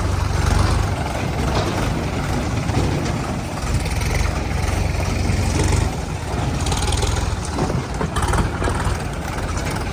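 Heavy diesel engine running at work, a steady low rumble with some rise and fall.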